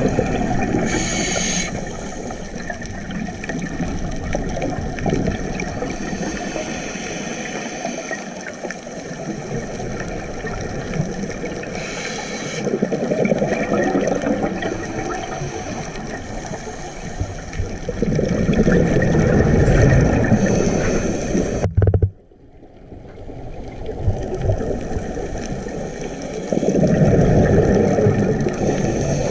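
Scuba diver breathing through a regulator underwater: now and then a short hiss of an inhalation, followed by long rumbling swells of exhaled bubbles, over a steady underwater wash. The sound cuts out suddenly for a moment about two-thirds of the way through.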